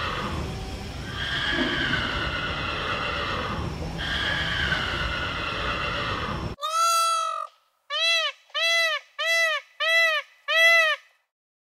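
Animal calls: a long call falling in pitch, heard about three times over a steady noisy background, then, after a sudden change about two-thirds of the way in, a run of six short, clean calls that each rise and fall in pitch.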